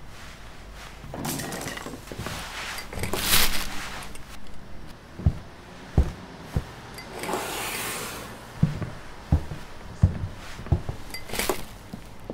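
Small ornaments handled and set down on a wooden shelf: a series of soft knocks spaced about half a second to a second apart, with rustling swells in between and a sharper click near the end.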